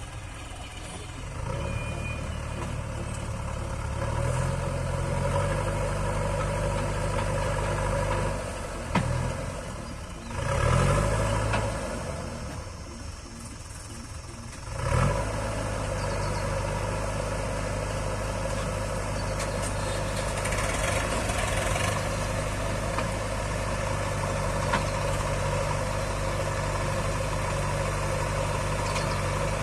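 Diesel engine of a backhoe loader or tractor running steadily. It picks up about four seconds in, gives a few sharp knocks near the middle with a brief lull, then settles back to steady running.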